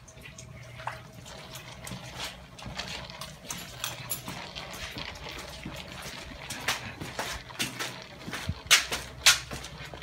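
Footsteps splashing through shallow water on a wet tunnel floor: a run of irregular wet steps, with two louder splashes near the end.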